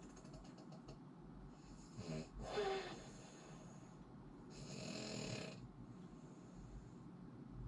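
A person snoring: a louder snore about two seconds in, then a breathier, hissing snore a couple of seconds later.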